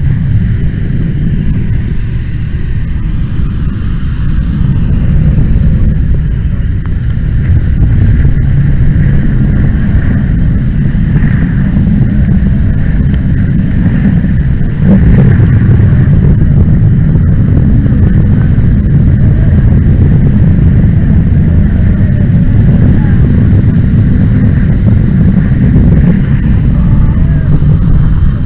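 Loud, steady low rumble on a fireground, heard through a helmet-mounted camera's microphone while hose streams are flowing onto a large fuel fire. It grows louder about halfway through.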